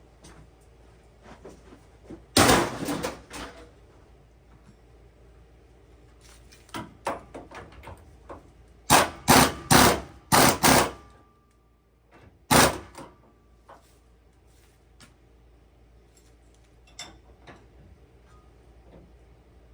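Sharp metal clanks from old steering linkage parts and tools being handled and tossed onto a scrap pile: a loud clatter about two seconds in, a quick run of about five strikes near the middle with a brief ring after, and one more clank shortly after.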